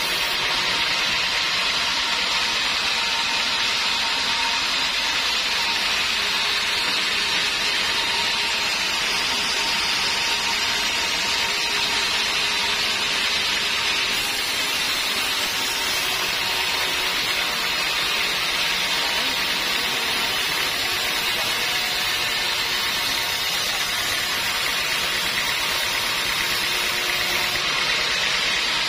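Sawmill band saw ripping lengthwise through a teak log: a steady, dense hiss of the blade cutting the wood over the running machine, with a faint steady whine.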